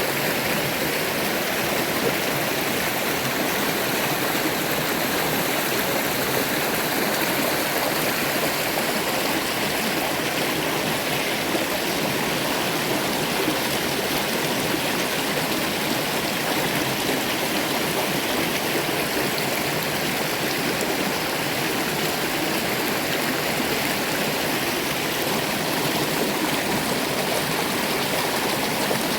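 River water flowing steadily, an even noise with no breaks.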